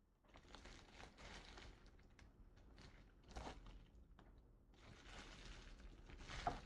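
Faint rustling and crinkling of packaging being opened and handled, in three spells of a second or two with a few small clicks between them.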